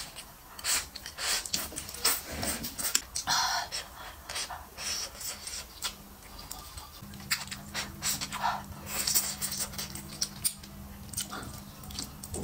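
Close-miked eating sounds: noodles being slurped and wet chewing, with many quick lip smacks and mouth clicks and short breaths through the nose.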